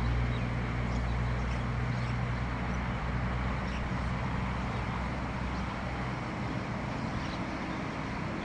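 A steady low engine-like hum that fades slowly, over a constant hiss, with a few faint chirps that may be birds.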